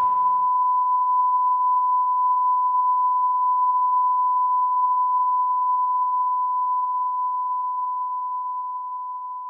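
A single steady electronic beep tone, held without a break and slowly fading over the last few seconds.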